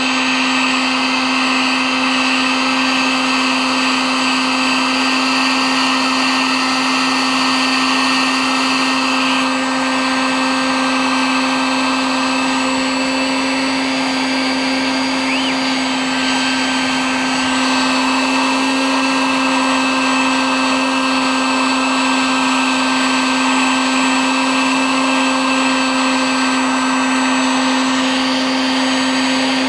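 Heat gun running steadily: a constant motor-fan whine and blowing air as it melts polyethylene to plastic-weld a patch onto a kayak hull.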